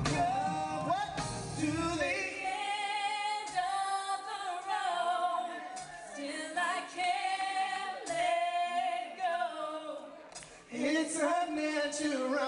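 Live R&B vocal group singing in harmony into microphones, with long held notes. The deep bass under the voices drops away about two seconds in, leaving mostly voices.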